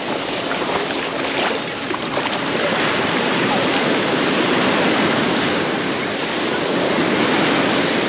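Small sea waves breaking and washing up over the sand at the water's edge: a steady rush of surf.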